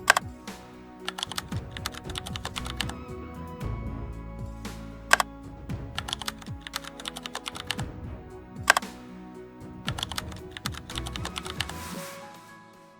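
Background music with a bass line, overlaid with a dense run of sharp, irregular clicks; the bass drops out and the level falls near the end.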